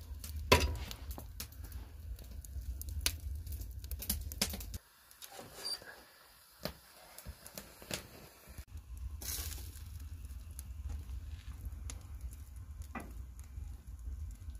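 Wood fire crackling and popping in a 55-gallon barrel stove, with sharp pops scattered throughout and the loudest about half a second in. A low rumble runs underneath and drops away for a few seconds midway.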